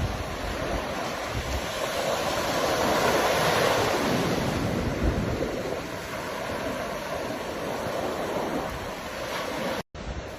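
Ocean waves breaking and washing on the shore, one wave swelling to its loudest about three to four seconds in. The sound cuts out for an instant near the end.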